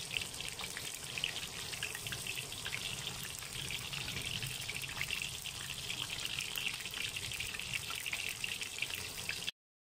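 Batter-coated tofu pieces deep-frying in hot oil in a wok: a steady sizzle dotted with fine crackles. It cuts off abruptly just before the end.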